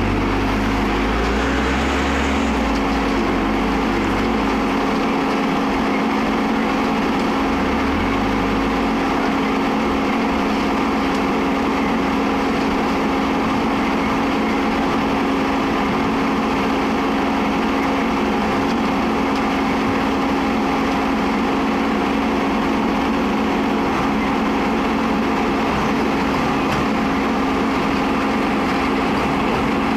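Diesel engine of a concrete mixer pump running steadily, with a constant hum; its low rumble shifts unevenly in the first several seconds, then evens out.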